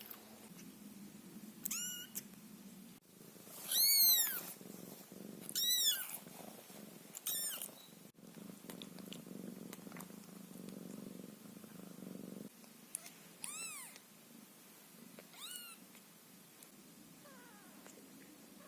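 Newborn ginger Scottish Fold kitten mewing: about six thin, high-pitched cries, each rising and then falling in pitch, spaced a few seconds apart. A steady low purr runs beneath them and stops about twelve seconds in.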